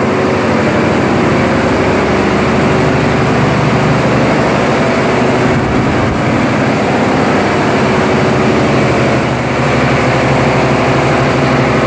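Loud, steady drone of the barge's large diesel generator engines running in the enclosed engine room, a dense low hum with a noisy roar above it and no change in pace.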